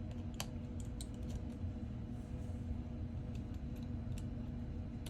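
Scattered light clicks and taps of a small tool working on an iPhone 14's internals as the battery connector is disconnected, over a steady hum.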